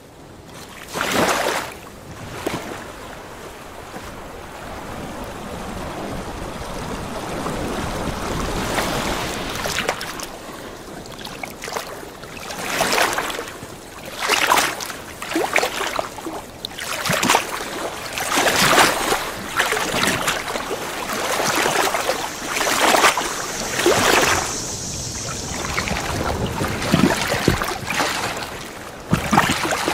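Water surging and splashing in rushing swells. The sound builds gradually over the first several seconds, then comes in repeated irregular surges every second or two.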